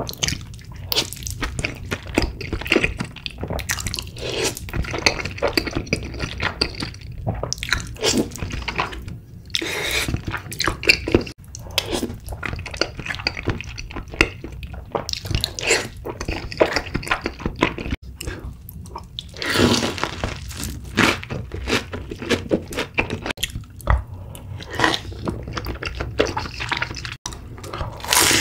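Close-miked wet eating sounds: chewing soft, saucy tteokbokki rice cakes with stretchy cheese, a run of irregular sticky, squishy clicks and smacks. A louder bite into fried chicken comes right at the end.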